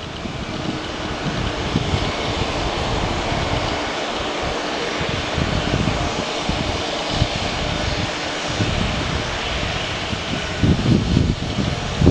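Airbus A320neo's twin turbofan engines at takeoff power as the airliner rolls down the runway. The jet roar swells over the first couple of seconds, then holds steady, with heavier low rumbling near the end.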